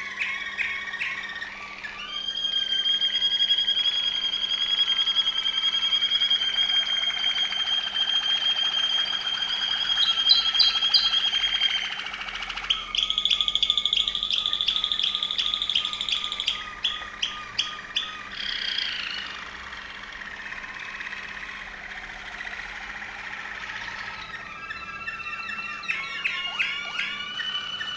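Waterslager (Malinois) canary singing: long, rapid, continuous rolling trills held for several seconds at a time, then a run of separate sharp notes, a softer bubbling stretch, and quick choppy notes near the end.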